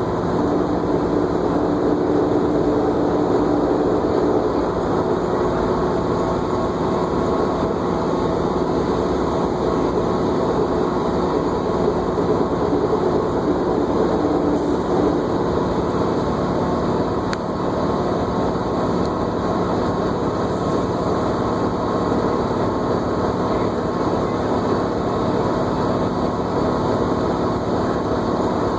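Interior ride noise of a New Flyer D40LFR diesel transit bus under way, engine and road noise running steadily. A whine rises out of it during the first few seconds and again about halfway through.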